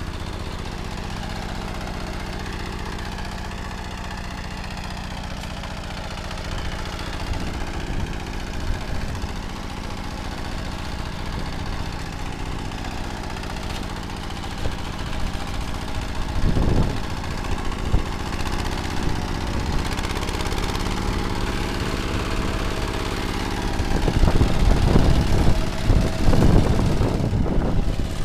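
ZUBR 10 hp walk-behind tractor engine running steadily while its rotary tiller works the soil. Uneven low thumps come in more than halfway through and grow louder near the end.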